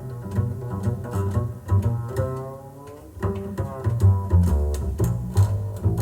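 Instrumental music with a deep, plucked double-bass line and crisp percussive ticks, played back through Dynaudio Confidence 30 loudspeakers.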